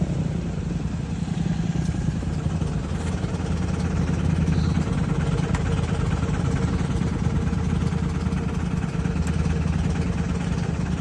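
A vehicle engine idling steadily at a constant low speed.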